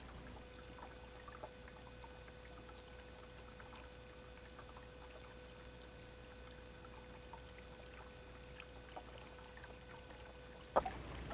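Faint, steady running water from a garden fountain, with a thin steady hum under it. A single sharp click comes near the end.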